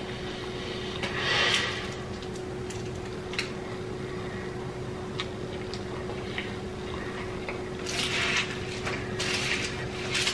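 Close-miked chewing of a mouthful of fried fast food: wet mouth clicks and smacking, with louder chewing bursts about a second in and several times near the end, over a steady faint hum.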